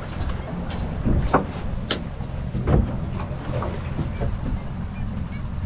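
Steady low rumble of a fishing boat at sea, with scattered knocks and clicks from the boat and fishing gear.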